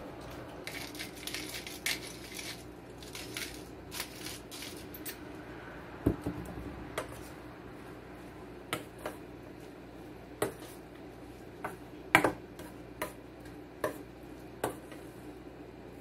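A hand-twisted salt grinder crunching out salt in the first few seconds. Then tuna salad is mixed by hand in a stainless steel bowl, with scattered clinks and knocks against the bowl, the loudest about twelve seconds in.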